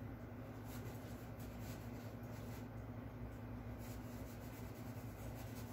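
Soft, irregular strokes of a paintbrush on canvas, brushing and lightly scratching, over a low steady hum.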